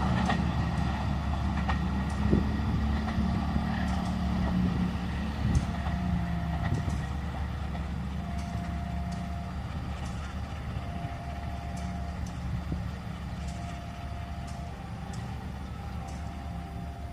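Diesel train engine running steadily and slowly fading as the train moves away, with light clicks along the way.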